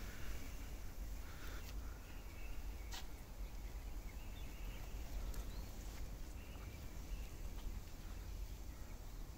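Quiet outdoor ambience: a low steady rumble with faint, scattered bird chirps, and a single sharp click about three seconds in.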